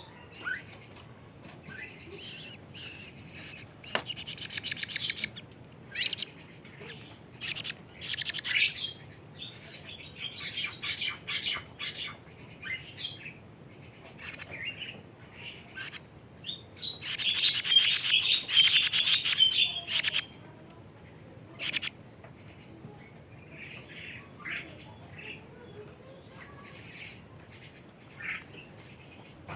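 Young kedasih (plaintive cuckoo), 41 days old, calling in scattered high chirps broken by rapid trills. The loudest, longest trill comes from about 17 to 20 seconds in.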